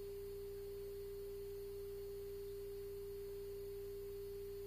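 A faint, steady hum at one mid-range pitch on the cockpit audio feed, with no change in pitch or level.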